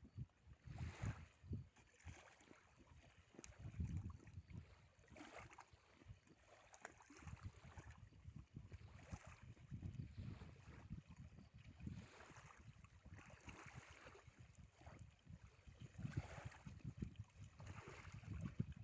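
Faint, irregular low gusts of wind buffeting the microphone, with light splashes of water against a small boat.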